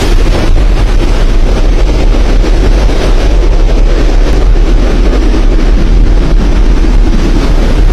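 Cyclone wind buffeting the microphone: a loud, steady rushing noise with a deep rumble underneath.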